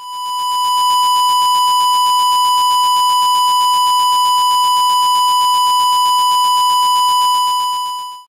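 Steady 1 kHz test tone played through an FIR lowpass filter with a 1 kHz cutoff. The tone comes through strongly, with much fainter higher overtones left in. It fades in over about the first second and fades out near the end.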